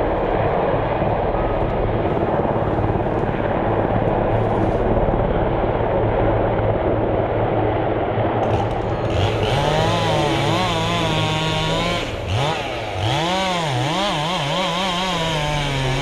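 Stihl chainsaw running off-camera, its engine pitch rising and falling again and again as the throttle is worked, starting about nine seconds in. Before that a steady rushing noise with a low hum.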